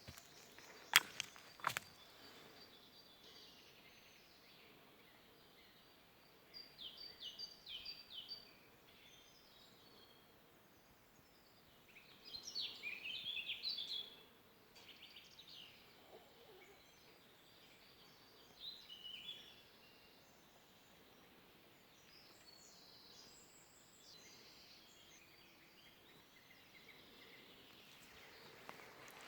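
Small songbirds singing in a forest: several short bursts of high chirping song, separated by quiet stretches. A few sharp clicks about a second in.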